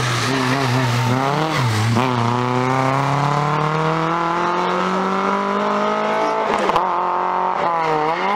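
Rally car engine dropping in pitch through a downshift, then accelerating hard with the pitch rising steadily for about four seconds. A sharp break comes about six and a half seconds in as it shifts up, and the engine climbs again.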